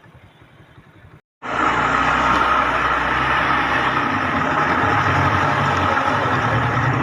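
A motor vehicle running steadily with a loud rushing noise. It starts abruptly about a second and a half in, after a brief faint stretch.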